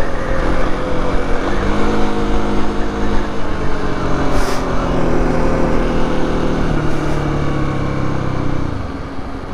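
Kawasaki KLX 250 single-cylinder engine running under way over wind noise. Its pitch falls slowly as the bike slows, then drops away near the end as the clutch is pulled in, so quiet that the engine sounds like it has died.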